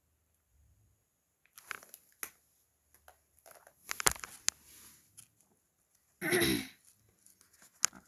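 Hands handling plastic phones: scattered clicks and short rustles, with a louder half-second rustle about six seconds in.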